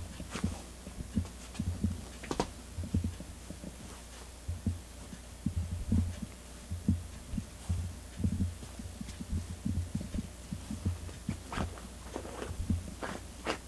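A cat digging at a padded fabric cat bed with its front paws: irregular soft thumps, a few a second, with some sharper scratching strokes on the fabric, more of them near the end.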